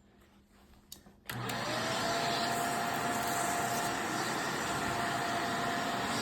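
Upright vacuum cleaner switched on about a second in, after a click or two: its motor whine rises quickly as it spins up, then settles into a steady run.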